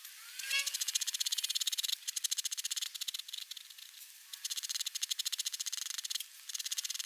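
Pigment pen hatching on paper: a rapid run of fine scratchy ticks in several runs, with short breaks between strokes.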